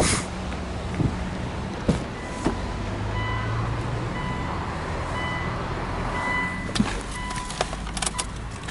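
A Subaru Legacy's driver's door unlatches with a sharp click. A few seconds later the car's electronic warning chime beeps softly several times, with the key sitting in the ignition and the door open. Near the end come a few light metallic clicks and clinks of the key being handled at the ignition.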